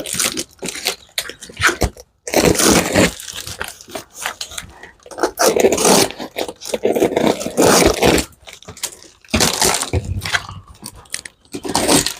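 Cardboard box being torn open by hand: flaps and tape ripping and crunching in irregular bursts.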